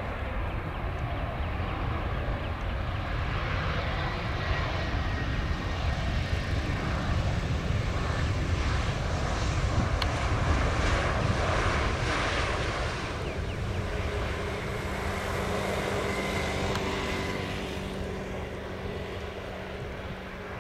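Boeing 737 MAX 8 airliner on its landing rollout, its CFM LEAP-1B turbofan engines running loud as it passes. The noise swells to a peak about halfway through, then fades as the jet rolls away down the runway, and a steady low hum shows through in the second half.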